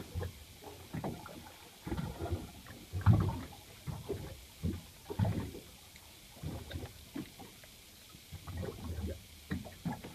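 Small boat adrift on calm open sea: water lapping and sloshing against the hull, with wind rushing on the microphone. It comes in irregular low rushes and thuds, the strongest about three and five seconds in.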